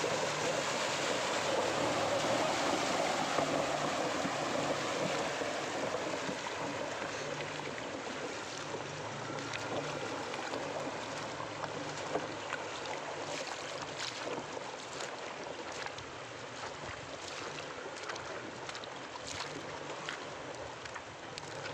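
Maruti Gypsy 4x4 driving through a shallow rocky river: water splashing and rushing around its wheels over a low engine hum. The sound is loudest in the first few seconds and fades as the vehicle moves away, with scattered short knocks later on.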